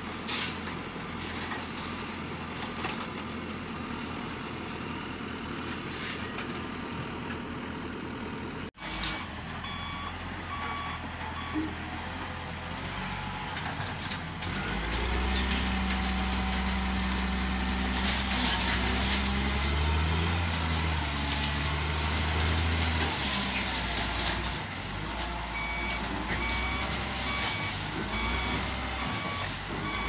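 Diesel engine of a JCB 3DX backhoe loader running steadily. Then a Caterpillar 938G wheel loader's diesel engine working, revving up and down under load. Its reversing alarm beeps about twice a second while it backs up.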